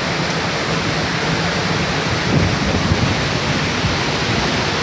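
Waterfall: the steady, loud rush of falling water.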